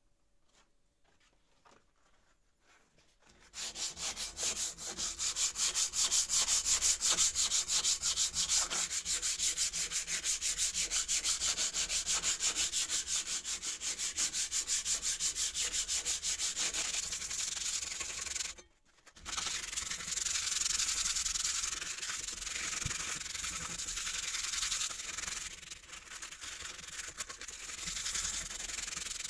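Hand sanding of a steel spade blade: abrasive paper rubbed back and forth over the metal in quick strokes. It starts about three seconds in and breaks off briefly a little past halfway before going on.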